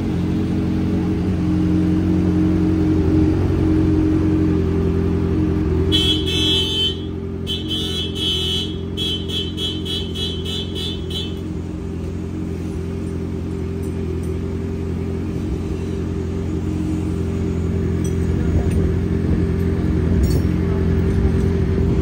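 Kawasaki Z1000R's inline-four engine idling steadily through an aftermarket titanium exhaust with a carbon-fibre muffler. About six seconds in, a rapid string of sharp, high-pitched clicks runs for several seconds over the idle.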